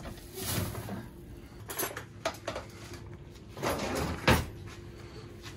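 Kitchen clatter: several separate knocks and bangs of cupboard doors and cookware being handled, the loudest a little past four seconds in, over a faint steady hum.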